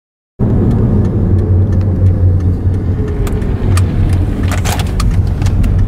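Car being driven, heard from inside the cabin: a steady low engine and road rumble with scattered light clicks and rattles, starting abruptly about half a second in.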